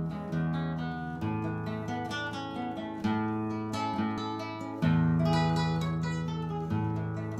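Acoustic guitar music: plucked and strummed chords ringing out, a new chord struck every second or two.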